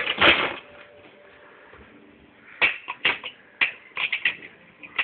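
Small die-cast toy cars clacking against a hard plastic car-ramp toy. A short loud rattle comes right at the start, then sharp irregular clacks about a dozen times over the second half.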